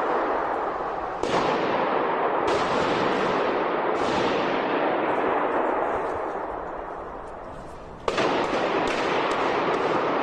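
Automatic gunfire echoing through a large, hard-walled mall atrium. Several sharp bursts come about a second, two and a half and four seconds in, each followed by a long reverberant wash. The echo fades away slowly until a loud new burst about eight seconds in.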